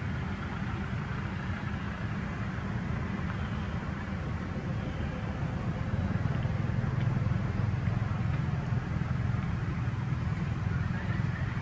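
Steady low outdoor rumble with a faint hiss above it and no distinct events, growing a little louder about halfway through.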